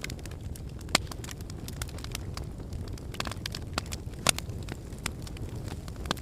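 Wood fire burning in a fireplace: a steady low rumble of flame with irregular crackles and snaps, two sharper pops about a second in and a little past four seconds.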